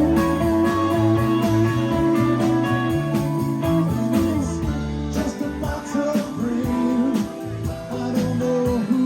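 Live rock band playing: guitars over bass and drums, with held notes and a steady beat.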